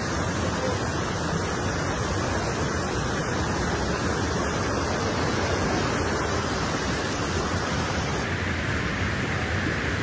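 Steady rush of river water tumbling over rocks below a waterfall.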